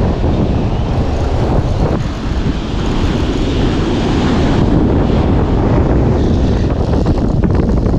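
Strong wind buffeting the microphone, with surf washing on the beach underneath.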